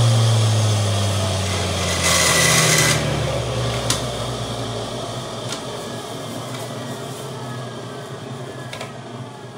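Centrifugal juicer's motor spinning down after being switched off: its hum falls steadily in pitch and fades over about five seconds. There is a short rush of noise about two seconds in, and a few light clicks later on.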